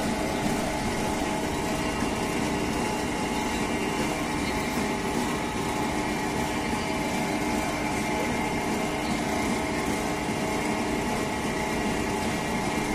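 An engine running steadily at a constant speed, an even drone with a few steady tones and no change in pitch or level.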